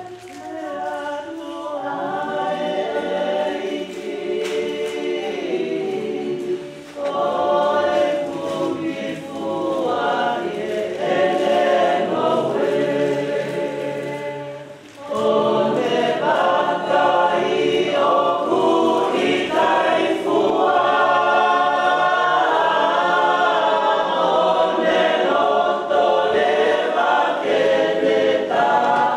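Choir singing, growing louder after a brief dip about halfway through.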